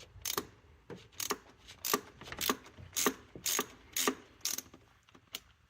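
Ratchet wrench clicking in steady strokes, about two a second, as a spark plug is unscrewed from a Ford 4.6 V8.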